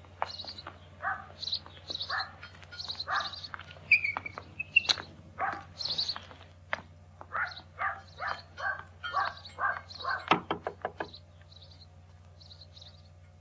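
Footsteps along a garden path at a steady walking pace, with small birds chirping, then a quick run of sharp knocks on a cottage's wooden front door a little after ten seconds in.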